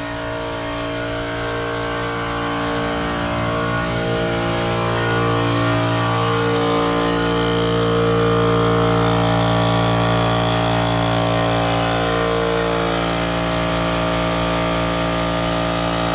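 Goodyear 10-gallon, 1.5 horsepower air compressor running steadily, its motor and pump making an even machine hum that grows louder over the first half and then holds steady.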